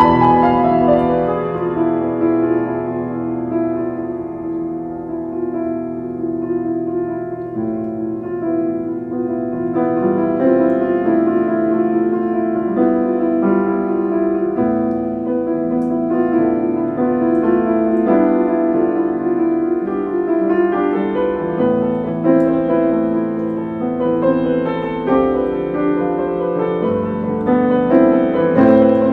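Background instrumental music with held notes and no singing.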